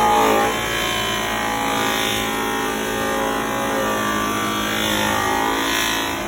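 Background music with steady pitched tones.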